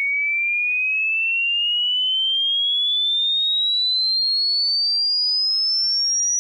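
Sine-wave test-tone sweep: a single pure tone rising steadily in pitch from a high whistle to a shriller one, at even loudness.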